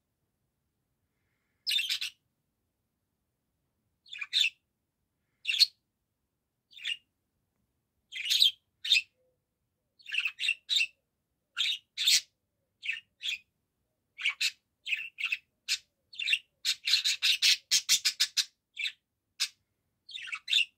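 Budgerigar chirping: short scattered calls with silent gaps at first, coming more often after about ten seconds, and a fast chattering run of chirps about three quarters of the way through.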